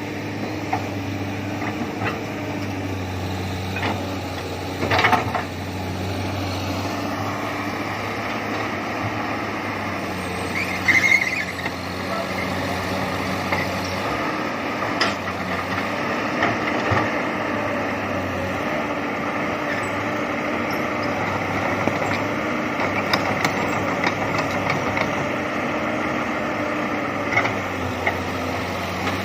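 Komatsu PC200 hydraulic excavator's diesel engine running steadily, its pitch shifting as the machine works, with scattered clanks, a louder clatter about five seconds in and a brief squeal about eleven seconds in.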